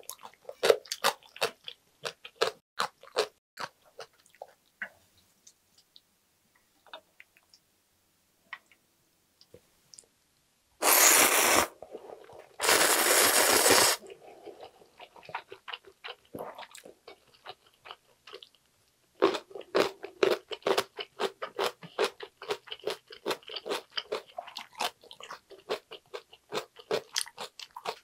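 Close-up mouth sounds of someone eating ramen noodles: wet chewing and smacking, a quieter spell, then two loud slurps of about a second each near the middle, and dense chewing again toward the end.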